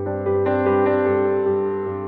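Background music: a few soft keyboard notes over a sustained chord.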